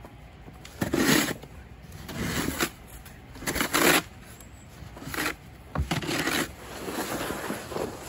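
Snow shovel scraping along the driveway and scooping snow, about six rough strokes, roughly one a second.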